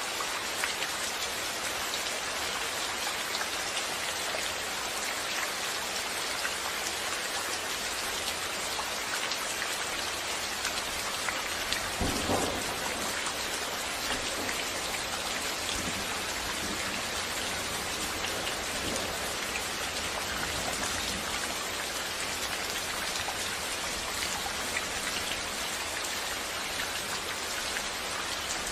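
Steady rain falling, an even hiss of drops. About halfway through there is a brief low rumble of thunder.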